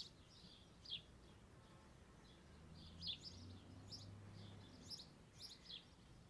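Faint birdsong outdoors: short, high chirps from small birds scattered through, with a faint low hum in the middle.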